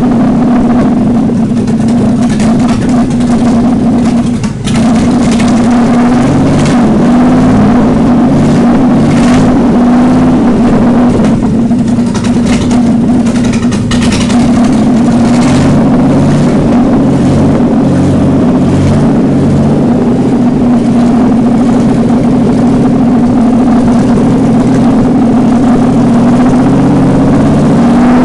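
GM Vortec 4.3 V6 engine running with no exhaust fitted, open-header and loud, holding a fast idle whose pitch wavers a little, with a brief dip in level about four and a half seconds in. The engine has just been brought back to life after about six years standing.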